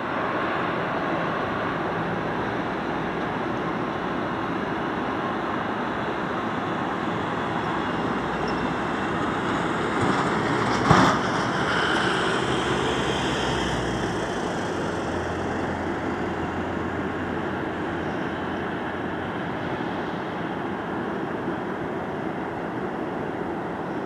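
Bombardier Global Express business jet's twin Rolls-Royce BR710 turbofans during the landing rollout: a steady jet noise that eases off gradually in the second half as the aircraft slows. There is one short knock about eleven seconds in.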